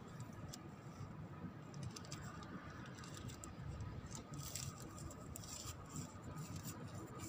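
A plastic bag being handled, rustling and crinkling in irregular bursts that are thickest about four to six seconds in, over a steady low rumble.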